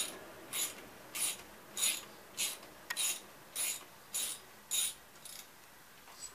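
Socket ratchet clicking in about ten even back-and-forth strokes, a little under two a second, as it loosens the bell housing nuts of a MerCruiser Bravo One outdrive. The strokes fade and stop a little after five seconds in.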